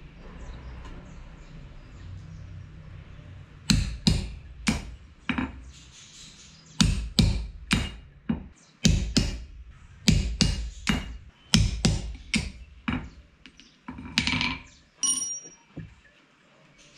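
Hand hammer striking a punch against a small steel knife-guard plate on a steel anvil: about eighteen sharp metallic strikes, irregularly spaced, starting about four seconds in, with some ringing on the last few.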